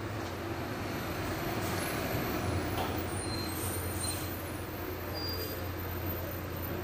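A steady low rumble with a hiss of background noise, with no clear single event.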